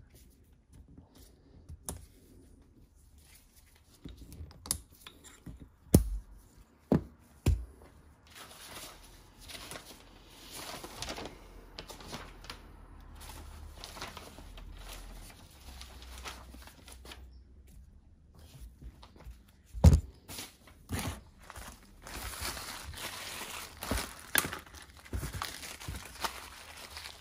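Hand-handling noise from reassembling a hydraulic valve block: rustling and crinkling, broken by a few sharp clicks and knocks of small parts, the loudest about six seconds in and about twenty seconds in.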